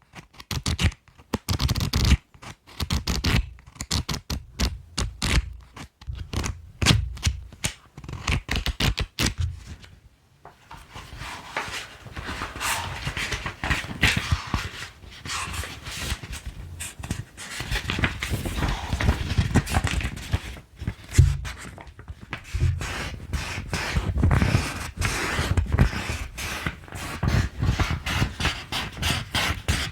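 Colored pencils making close-up scratching and tapping sounds: quick separate strokes at first, then after a short pause about ten seconds in, denser, continuous rapid scratching.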